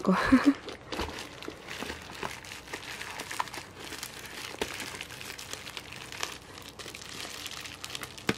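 Bubble wrap crinkling and rustling with small crackles as hands handle and unwrap it from a boxed CD player.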